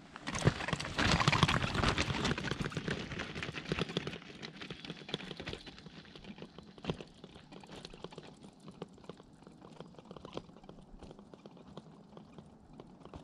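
Loaded Brompton folding bike rolling over a loose gravel track, its small tyres crunching and the stones rattling. Loud at first close by, then fading steadily as the bike rides away.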